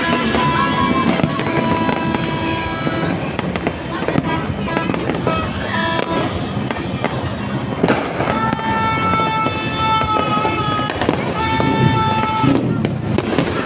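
Fireworks bursting and crackling without pause, with a sharp bang about eight seconds in. Music with long held notes plays along with it.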